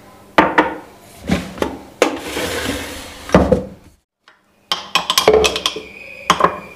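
A few knocks and clatters of kitchenware being handled, then, after a short break, a metal spoon clinking and scraping rapidly against the blender jar and a glass jar as thick mint chutney is spooned across.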